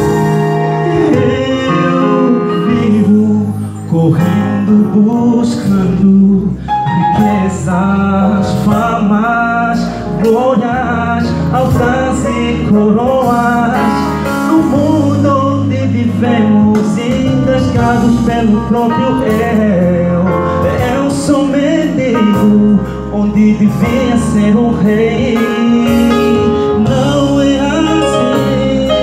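Male choir singing in several-part harmony, the voices held and moving together without a break.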